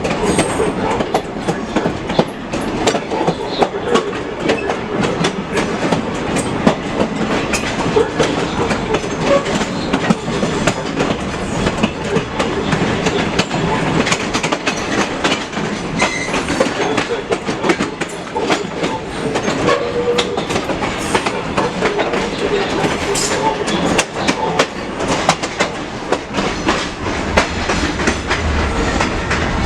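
Moving passenger train heard from aboard: a steady rumble from the wheels, with frequent sharp clicks as they pass over the rail joints.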